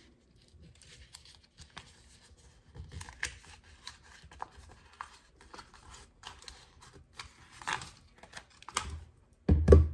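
Reused vinyl transfer paper being rubbed flat and handled on a table by hand: soft scattered rustles and light clicks, with a louder low thump near the end.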